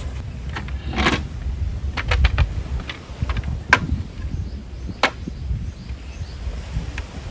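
Several sharp clicks and knocks, the biggest about a second in, a few more around two seconds, then single ones near three and a half and five seconds, over a steady low rumble.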